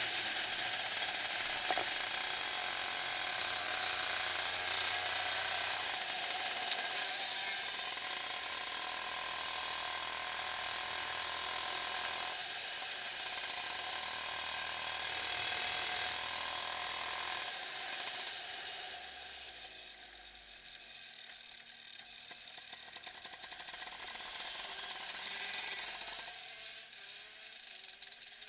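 Two-stroke shifter kart engine running at speed, heard onboard as a dense, buzzy rasp. About two-thirds of the way through it eases off and falls quieter, then picks up again near the end.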